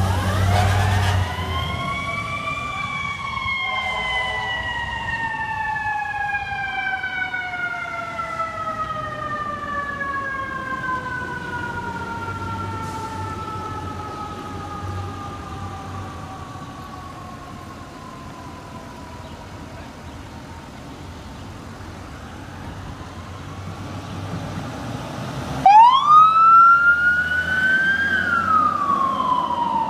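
Fire truck siren winding up and then slowly falling in pitch for about twenty seconds as a tower ladder pulls away, with the truck's engine rumbling at the start. Near the end a second, louder siren from a battalion chief's SUV sweeps sharply up, falls and begins rising again.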